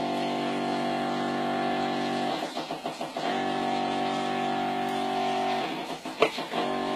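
Electric chicken-injection pump humming steadily. Twice, about two and a half and five and a half seconds in, the hum breaks for about a second into a rapid fluttering pulse, with a sharp click in the second break.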